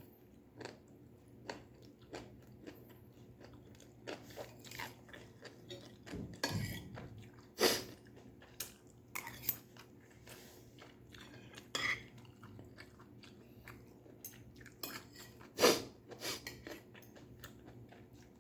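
Chewing and crunching of stir-fried vegetables, with utensils clinking against a dish; two sharper, louder clicks stand out, about eight and sixteen seconds in.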